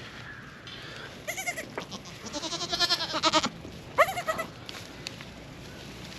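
Goats bleating: a short call, then a long quavering bleat, then a sharp rising call about four seconds in, the loudest of the three.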